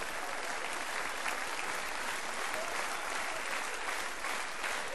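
Large audience applauding steadily, with laughter mixed in.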